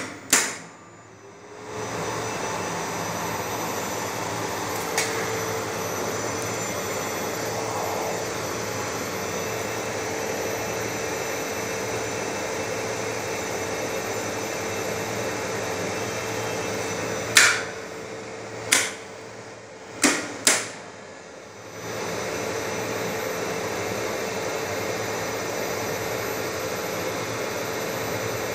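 A lift's machinery and Monarch NICE3000 inverter drive running with a steady whirring hum. About 17 seconds in, four sharp clicks come over a few seconds while the hum drops away. The hum starts up again a couple of seconds later.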